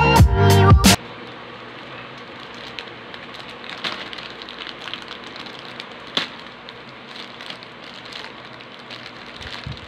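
Black plastic courier mailer crinkling and crackling as hands tear and pull it open, with scattered sharp crackles. Loud intro music cuts off about a second in.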